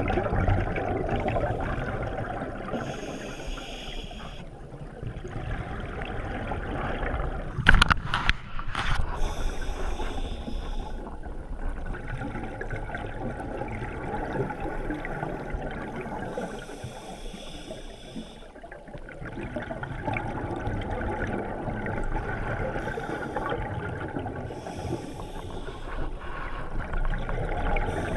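Scuba regulator breathing heard underwater: a hiss on each inhalation, about every seven seconds, and bubbling, gurgling exhaled air between. A few sharp clicks about eight seconds in are the loudest sound.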